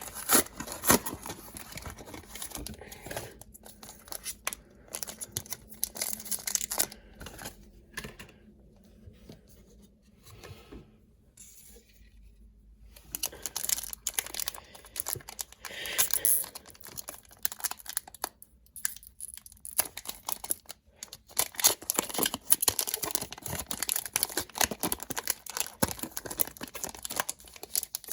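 A foil trading-card booster pack being torn open and crinkled, with the cards inside handled: irregular crackling and rustling, quieter for a few seconds about a third of the way in, then busier again.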